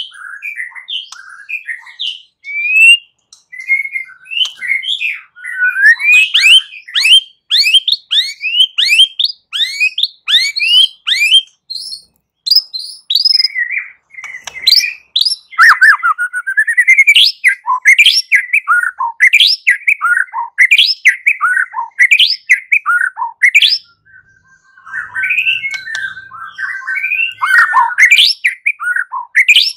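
Captive white-rumped shama (murai batu) singing a long, varied song in fighting ('tarung') style. It runs through quick series of sharp sweeping notes, chattering phrases and, near the end, one held steady whistle, with only brief pauses.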